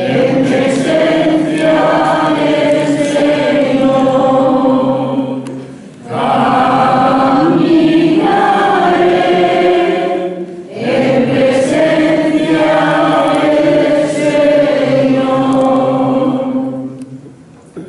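Church congregation singing a hymn together in three long phrases, with short breaks between them, fading out near the end.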